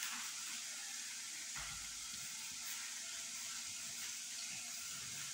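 Beef frying in oil in a pan: a steady sizzle.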